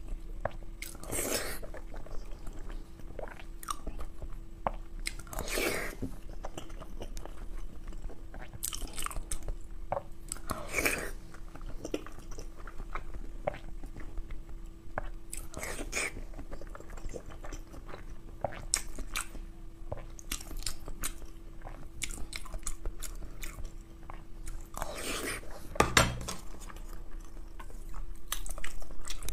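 Close-miked chewing and wet mouth sounds of someone eating boiled eggs, with a handful of louder short bursts a few seconds apart and one sharper knock near the end. A faint steady hum runs underneath.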